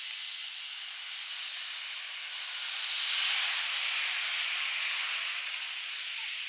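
Steady hiss of outdoor background noise that swells slightly about three seconds in.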